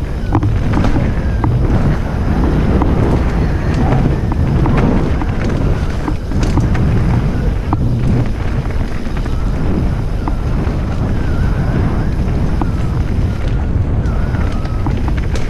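Wind buffeting the microphone of a helmet-mounted GoPro Session 5 on a fast mountain bike descent, with the tyres rumbling over the dirt trail. Short clicks and knocks from the bike come through now and then over the bumps.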